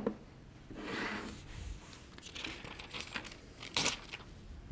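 Soft crinkling and rustling of handled packaging in short bursts, with a few light clicks; the sharpest burst comes near the end.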